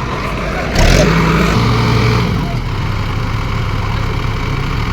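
Tractor engine running a pile-boring drill, revving up under load about a second in, then settling back to a steady run.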